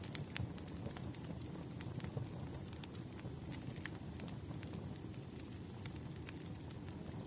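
Firewood burning: a steady low rumble of the flames with scattered sharp crackles and pops, several a second.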